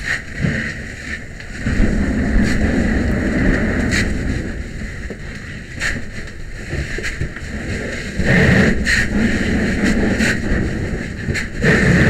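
Loud rushing noise in two long surges, with scattered sharp clicks, heard from a firefighter's helmet camera during an interior attack on a burning trailer.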